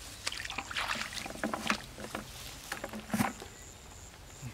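Muddy water splashing and sloshing as a person wades through a shallow pool and feels in the mud with bare hands. The splashes are irregular, with a louder one about three seconds in.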